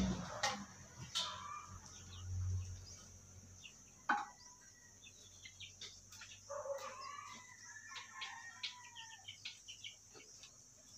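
A rooster crows faintly in the background near the middle, with chickens calling. Scattered knocks and clicks come from butchering a pig carcass on a wooden table, the sharpest about four seconds in.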